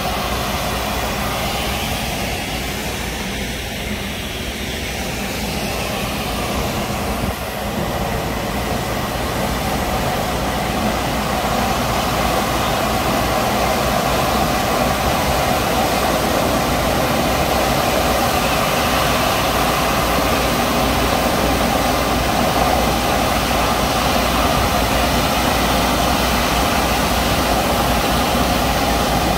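Truck-mounted road sweeper on a Ford Cargo chassis running as it sweeps: its engine, sweeping brushes and suction machinery make a steady drone and hiss, with a steady whine on top. It gets louder as the sweeper comes closer.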